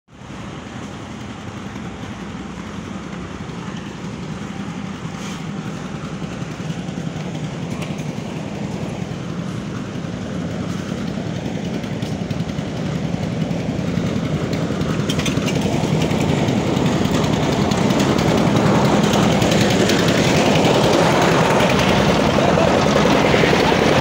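A small engine runs steadily with a low, even hum that grows gradually louder. It is most likely the engine of the red wheeled construction machine beside the lane.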